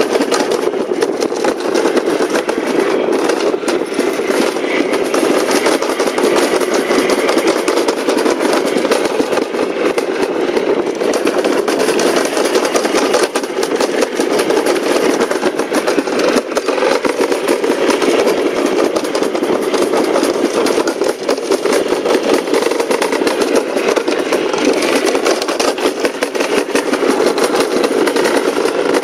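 Summer bobsled running fast down a stainless-steel trough track, heard from on the sled: a loud, steady rumble and rattle of the sled on the metal chute.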